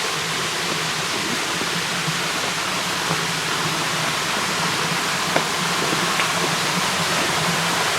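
Waterfall rushing: a steady hiss of falling water that swells slightly in the second half, with a couple of faint clicks.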